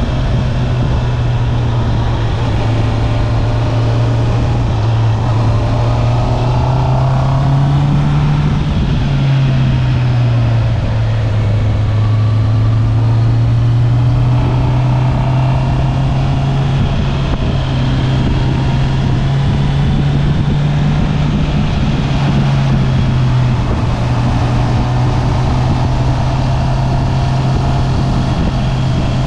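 Stock Honda CB650R's inline-four engine and exhaust running under way, its note rising briefly about eight seconds in, then dropping back and holding steady.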